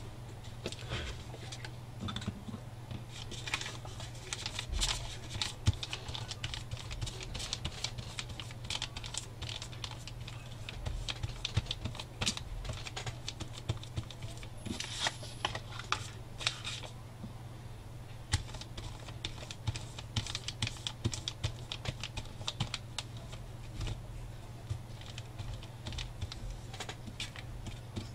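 Flat brush dabbing and spreading white glue across paper: a long run of small, irregular clicks and scratchy strokes over a steady low hum.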